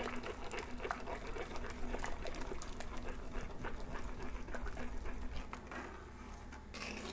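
A flour-and-water slurry poured into a clay pot of broth and stirred in with a metal spoon: faint, irregular small clicks and liquid movement, fading near the end.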